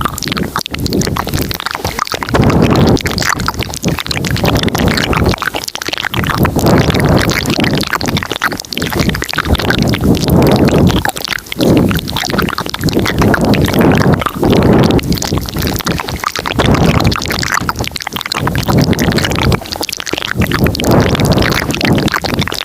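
Layered ASMR mouth sounds close to the microphone. They come as dense, noisy swells of a second or two each, with short breaks between them.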